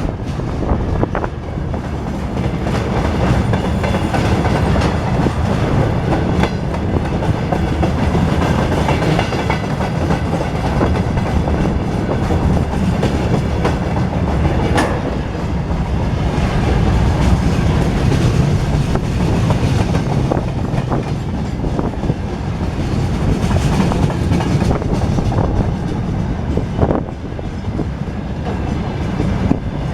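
Train rolling past, its wheels clattering over rail joints above a steady heavy rumble.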